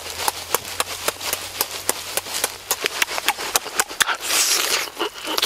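Close-up eating sounds of a man devouring a whole roasted chicken by hand: wet chewing and lip-smacking in quick, irregular clicks, with a longer noisy bite into the meat about four seconds in.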